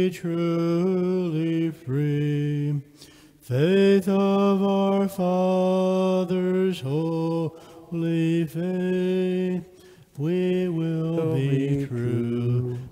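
Men's voices singing a hymn unaccompanied, in phrases of held notes with short breaks between them; the entrance hymn that opens the Mass.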